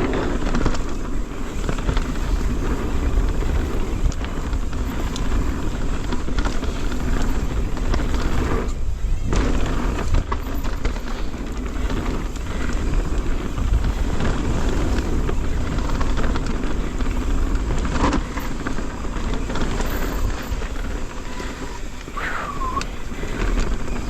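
Transition Sentinel mountain bike riding down a dirt trail: tyre noise, with the bike rattling and knocking over bumps and roots. Wind buffets the microphone.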